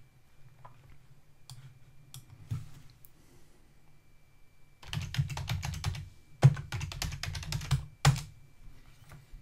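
Typing on a computer keyboard: a few scattered keystrokes, then two quick runs of typing about five and six and a half seconds in, ending in one harder keystroke, as a short console command is entered.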